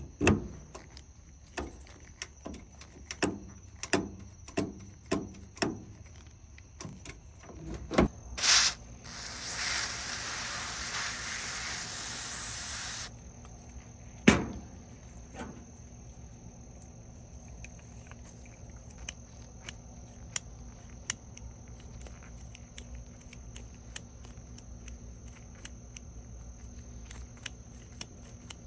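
A series of sharp clicks from the dryer's start switch being worked, then an aerosol spray hissing for about four seconds into the switch, then one loud click.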